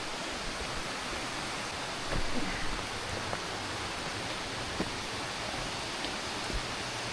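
A small river flowing: a steady rush of water, with a few faint knocks, the loudest about two seconds in.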